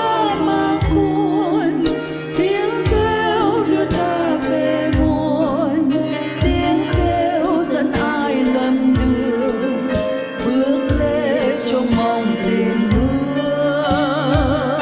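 Music: a slow Vietnamese hymn, a melody with vibrato over sustained accompaniment and a steady low beat about once a second.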